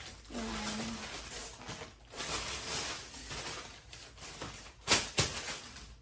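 Plastic packaging bags rustling and crinkling as the monitor's parts are handled during unpacking, with two sharp knocks about five seconds in.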